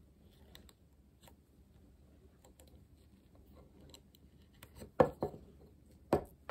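Faint clicks and small handling noises as fingers work rubber bands over the pegs of a small wooden-stick loom. Near the end come three louder short knocks: two close together about five seconds in and one just after six seconds.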